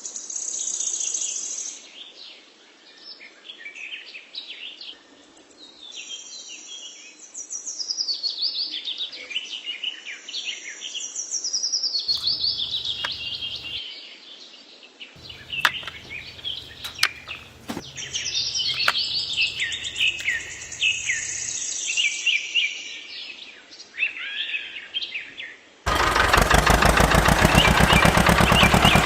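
Many small birds chirping and singing, with quick, repeated high chirps and a few sharp clicks in between. About 26 seconds in, a loud, steady motor noise starts suddenly and drowns out the birds.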